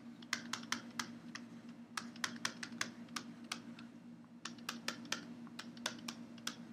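Faint, irregular clicks and taps of a stylus on a pen tablet while words are handwritten, with a short pause in the clicking a little before the middle.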